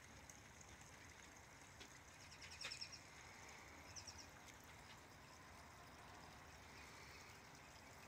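Faint steady trickle of a small garden pond waterfall, with a few brief high bird chirps about two and a half seconds in and again around four seconds.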